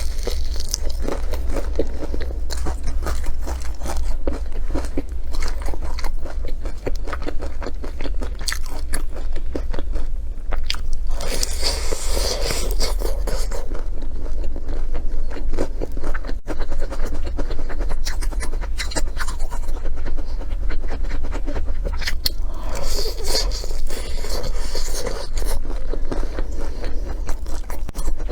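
Close-miked eating: food bitten, crunched and chewed in a steady run of small crackles, with louder crunches twice, about twelve seconds in and again near twenty-four seconds, over a steady low hum.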